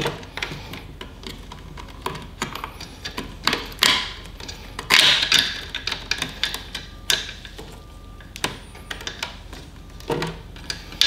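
Irregular small clicks, taps and rustles of a ribbon cable being pulled through the metal frame and wiring of a 3D printer's electronics bay, with a couple of longer rustles about four and five seconds in.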